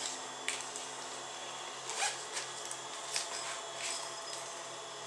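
A padded fabric zipper pouch being handled and pressed into shape by hand: rustling of the fabric and zipper, with a handful of short scrapes.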